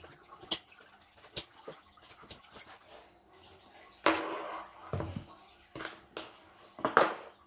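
Handling noise from an Android car head unit and its cables being moved on a table: scattered plastic clicks and light knocks, a longer rustling scrape about four seconds in, and sharper knocks near five and seven seconds.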